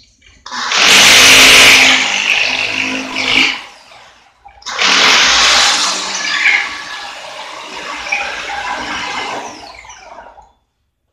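Electric drill boring a hole into a wall, in two runs: one of about three seconds near the start, then a longer one of about six seconds that gradually gets quieter before stopping.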